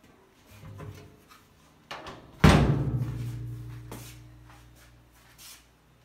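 A loud bang on a top-loading washing machine, its metal tub and cabinet ringing on with a low hum that fades over about two seconds. A smaller knock comes just before it, with light handling knocks around it.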